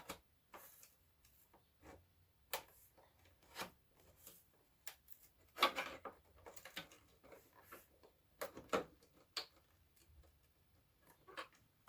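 Scattered, irregular clicks and knocks, with a louder clatter about six seconds in, from a subwoofer's assembly being worked loose during disassembly.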